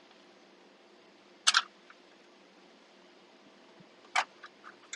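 Sharp hard clicks of a screwdriver tip and wires worked into the small holes of a plastic dash panel trim: a quick double click about a second and a half in, another click near the end followed by a few lighter taps, over a faint steady hum.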